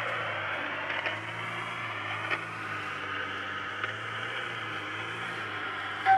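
PRC-515 shortwave receiver hissing with band noise on 20-metre single sideband between transmissions, cut to the narrow voice band, over a steady low hum with a few faint crackles.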